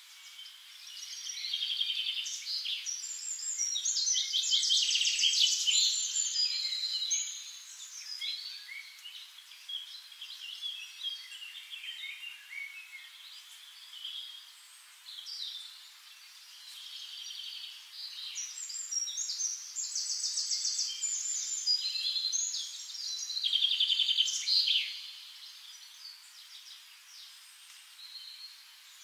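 Songbirds singing, a mix of short chirps and rapid trills, with louder busy stretches a few seconds in and again about twenty seconds in.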